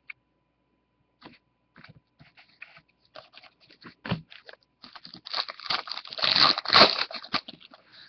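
Foil trading-card pack wrapper crinkling as it is handled and torn, with the light clicks and rustle of cards being handled. Scattered small clicks come first, then a denser stretch of crinkling about five seconds in, the loudest part.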